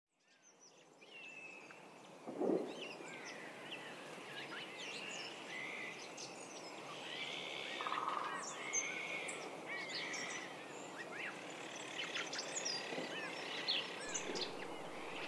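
Many birds chirping and calling over a steady outdoor noise bed, fading in from silence over the first two seconds. A short, lower-pitched sound about two and a half seconds in is the loudest moment.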